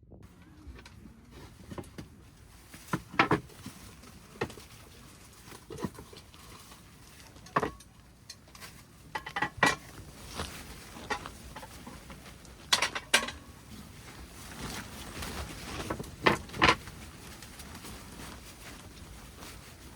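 Camp cookware and utensils being handled: irregular sharp clicks and clinks, some in quick pairs or small clusters, spaced a second or more apart.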